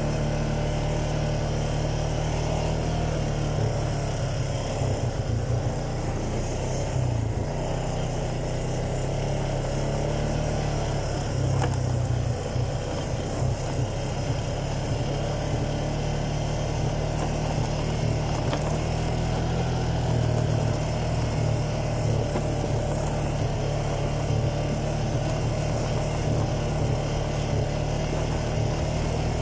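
ATV (quad bike) engine running steadily under way on a dirt track, heard close up from the rider's seat, with a strong low hum that holds throughout.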